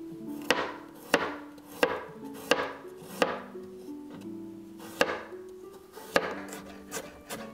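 Chef's knife slicing a garlic bulb into rounds on a cutting board: about seven sharp knife strikes on the board, roughly one every 0.7 s, with a short pause midway.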